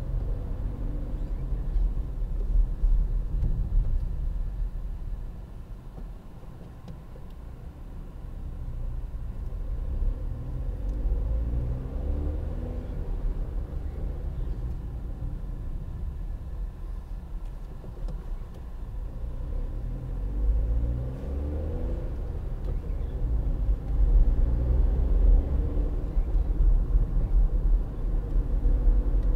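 Inside the cabin of a moving 2012 Volkswagen up!: its 1.0-litre three-cylinder engine and road rumble. The engine note rises several times as the car accelerates, with a quieter stretch about six to eight seconds in.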